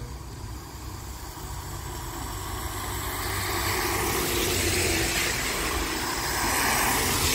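Cars driving past on a wet road, their tyres hissing through the standing water. The hiss swells as each car comes by, loudest about halfway through and again at the end.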